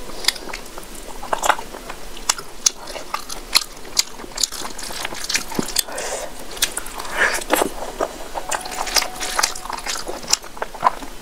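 Close-miked ASMR eating: a person chewing mouthfuls of rice and curry eaten by hand, with many sharp, irregular wet mouth clicks. Rice is mixed and squeezed by fingers between bites.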